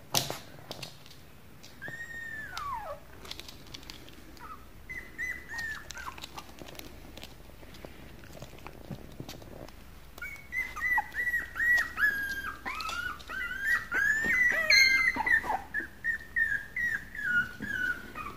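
Shiba Inu puppy whimpering: one long falling whine early, a few more, then from about halfway a quick string of short high-pitched whines, roughly two a second.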